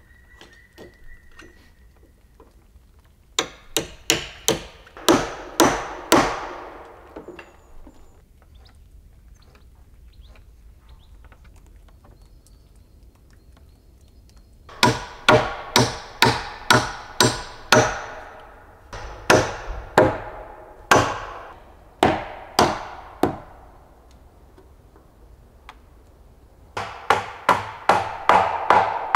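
Hammer blows on the wooden rafters of a roof frame. They come in three runs of steady strikes, two to three a second, each with a short ring.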